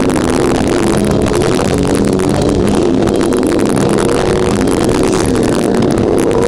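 Death metal band playing live: a dense, unbroken wall of heavily distorted guitars over rapid drumming, loud and steady throughout.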